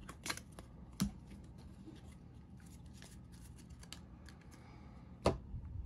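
Trading cards being handled and shuffled in the hand, with a few sharp clicks as cards are slid and set down over a low steady hum.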